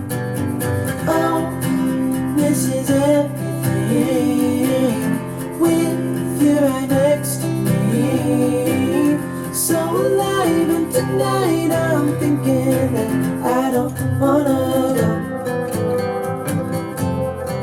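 Music played back through a Grundig Super HiFi Box 2500 loudspeaker: a song with acoustic guitar strumming and singing.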